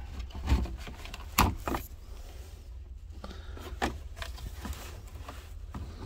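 Sharp plastic clicks and knocks from a gloved hand working an HVAC control wiring plug loose behind a dashboard, the loudest about a second and a half in, over a steady low rumble.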